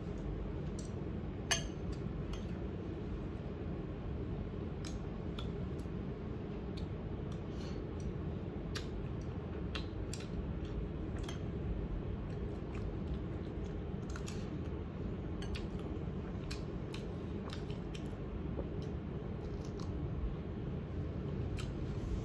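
Eating sounds: a metal spoon and fork clicking and scraping against a ceramic bowl of rice, with chewing, at irregular intervals, one sharper click about a second and a half in. A steady low rumble sits underneath.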